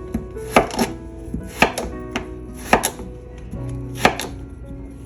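Kitchen knife chopping peeled white yam into chunks on a cutting board: sharp strikes, mostly in quick pairs, about one pair a second. Soft background music under it.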